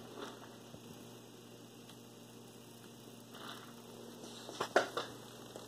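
Steady low electrical mains hum, with a few sharp clicks about four and a half seconds in.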